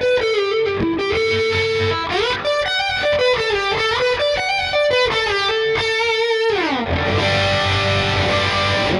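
Lavish CMRL-W electric guitar with Tesla pickups, played through distortion: a lead line of sustained, bent notes with vibrato, quick runs and slides. Near the end it slides down into a low ringing chord, held for about two seconds before it cuts off.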